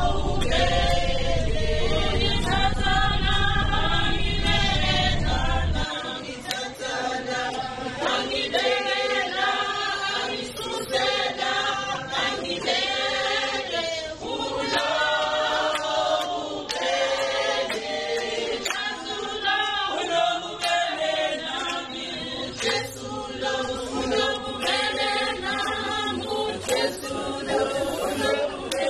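A cappella choir of many voices singing in harmony. A low rumble sits underneath for about the first six seconds, then cuts off abruptly.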